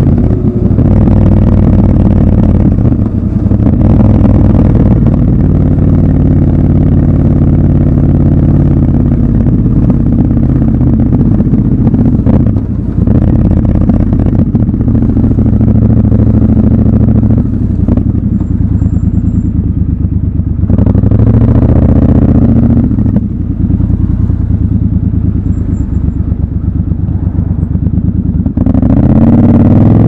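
Triumph Scrambler 1200 XC's parallel-twin engine running as the bike rides at low speed, its note shifting with the throttle and rising in revs twice near the end.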